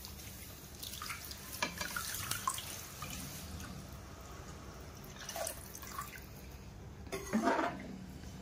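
Water poured from a bottle into a kadhai of curry gravy, splashing and pattering into the liquid for several seconds, then a metal ladle stirring in the pan near the end.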